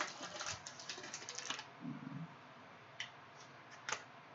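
Crinkling rustle of a trading-card pack's wrapper being torn open for about a second and a half. Then it goes quiet, with two light clicks near the end as the cards are handled.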